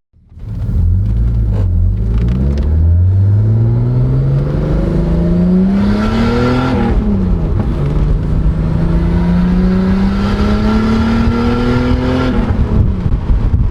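Turbocharged BMW E24 635CSi's M30 straight-six accelerating hard, its note climbing steadily for about six seconds, dropping sharply at a gear change, then climbing again before easing off near the end.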